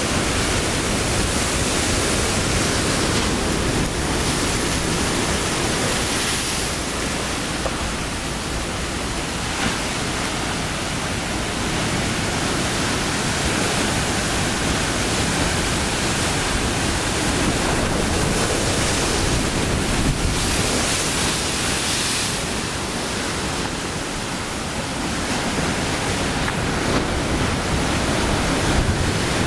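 Ocean surf: waves breaking and washing in as a continuous rush of white water, which swells and eases a few times.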